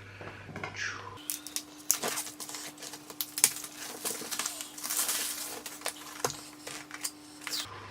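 A product box and its packaging being opened and handled by hand: a busy run of sharp clicks, taps and rustling.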